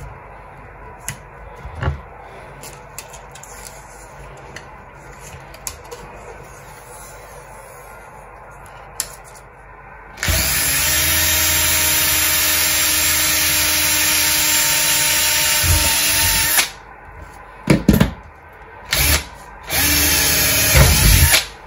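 Cordless drill boring into a plastic pipe coil former: about six seconds of steady running starting some ten seconds in, then three short bursts. Before that, only faint clicks and taps while the wire is taped down.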